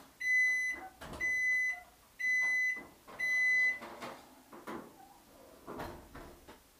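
Electric oven's timer beeping: four long beeps at one steady high pitch, about one a second, signalling the baking time is up. Then a few knocks and clatters as the round pizza pan is slid out of the oven and set on the stovetop.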